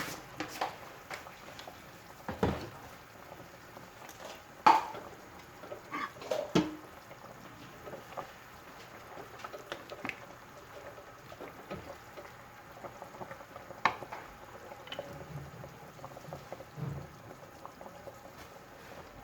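Stovetop cooking: a pot bubbling steadily, with a metal utensil clinking against the pot several times, the loudest clink about five seconds in.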